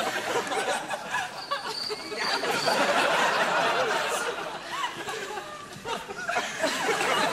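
An audience laughing, the laughter swelling about two seconds in and easing off toward the end.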